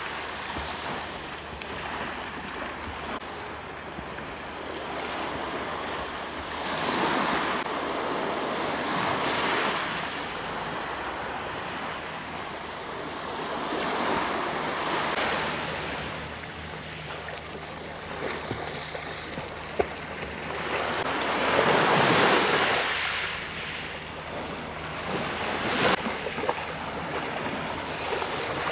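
Small waves breaking and washing onto the shore, the surf sound swelling and fading every few seconds, with swimmers splashing in the sea.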